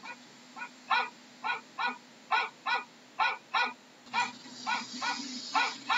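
A dog barking over and over in quick, harsh barks, about two a second. A hiss joins underneath from about four seconds in for a second or so.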